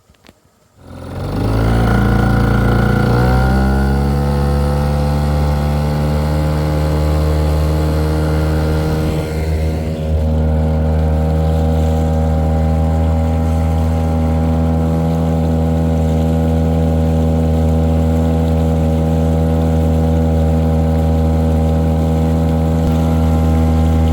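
Boat's outboard motor catching about a second in, then settling into a steady run.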